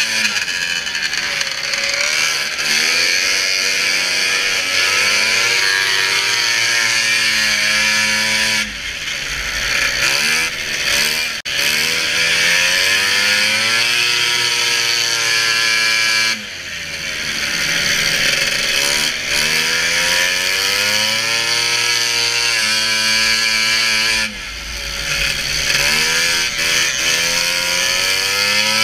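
Racing snowmobile engine running hard at high revs. The throttle is backed off three times, about a third in, just past halfway and near the end; each time the pitch drops and then climbs back up as it accelerates again.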